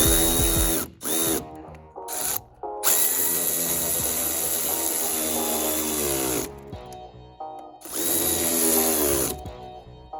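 Cordless power tool motor run in several bursts, pitch rising as it spins up and falling as it winds down, the longest run lasting a few seconds in the middle, most likely running down the strut's mounting nuts.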